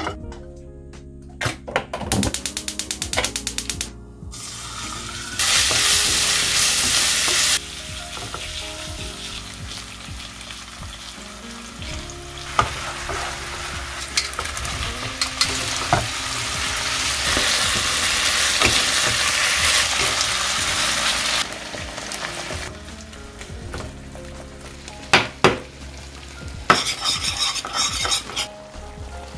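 Food sizzling and frying in a pan while being stirred, with rapid tapping and scraping of a utensil. The sizzle starts suddenly and loud about five seconds in, cuts off two seconds later, then builds again through the middle before fading.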